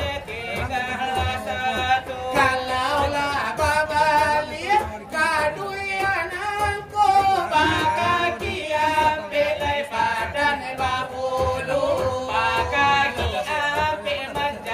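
Selawat dulang: Minangkabau devotional singing in long, bending, ornamented lines over steady beats struck on a dulang, a metal tray used as the drum.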